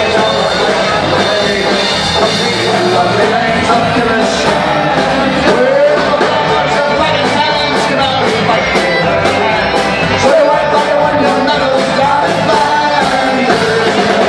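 Live Irish folk-rock band playing through a PA: a woman singing lead over strummed guitars, fiddle, banjo, bodhrán and drum kit.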